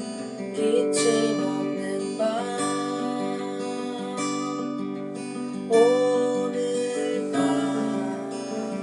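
A song played live on strummed acoustic guitar, with a voice singing over it.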